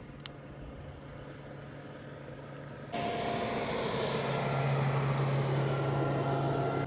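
Passing motorboat's engine droning steadily on the river. About three seconds in, a loud rush of noise comes in suddenly and holds over the drone.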